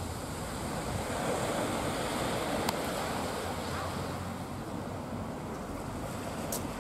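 Small waves washing onto the beach: a steady hiss of surf that swells a little in the middle, with a brief click about two and a half seconds in and another near the end.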